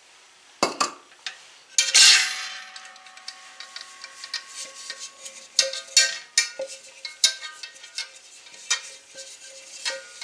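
Granulated sugar rattling and sliding inside a metal tube cake pan as the pan is tilted and turned to coat it, with knocks of the pan throughout and a loud clang that rings on about two seconds in.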